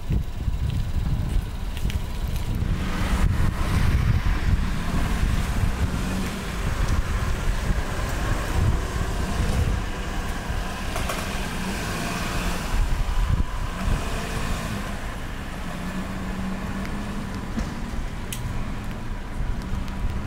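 Motor vehicle driving: a steady low rumble of engine and road noise, with the hiss of street traffic strongest through the middle.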